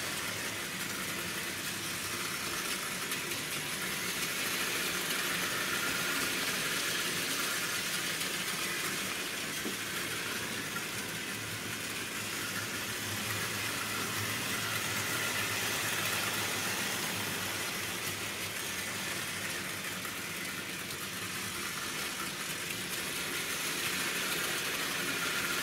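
Hornby Dublo Co-Co diesel-electric model locomotive running with a train of wagons: its ring-field motor whirring and its wheels rattling steadily along the track, swelling and fading gently.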